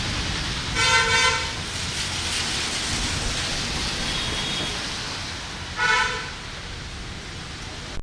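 A vehicle horn honks twice, a half-second blast about a second in and a shorter one near six seconds, over a steady hiss of rain and traffic on a wet road.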